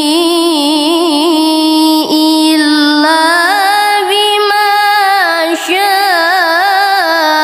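A Quran reciter's solo voice in melodic recitation, holding long notes with wavering, ornamented pitch. The melody steps up to a higher pitch about three seconds in, with short breaks for breath about two seconds in and again past the five-second mark.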